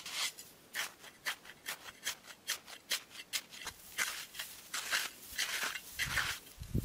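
Crusted, icy snow crunching in a quick even series of sharp crunches, about two a second. About four seconds in they give way to a few longer, scraping crunches.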